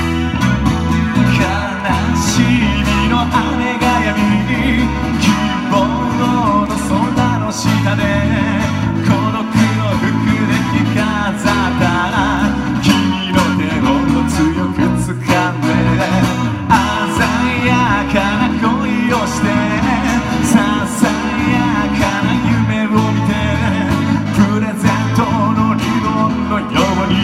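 Live rock band playing with guitar and drums, a steady beat and a melody line over it.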